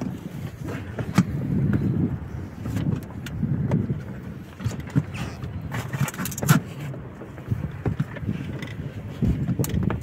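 Gear handling on a small boat while a crab ring net is hauled up from the water: an uneven low rumble with scattered sharp knocks.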